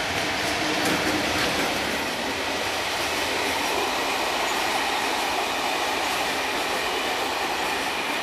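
A passenger train of coaches rolling past behind an electric locomotive: a steady rumble of wheels on the rails, with a few sharp wheel clicks in the first second.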